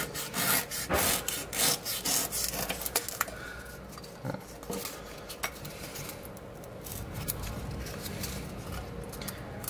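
Utility knife blade slicing thin shavings off the edge of a Depron foam strip. A run of short scraping strokes comes in the first three seconds or so, then it goes quieter with a few light clicks.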